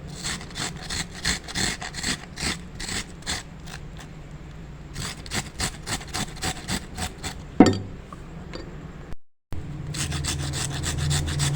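Shallots being grated on a small hand grater: repeated rasping strokes, about three or four a second. The sound cuts out briefly about nine seconds in, then comes back faster over a low hum.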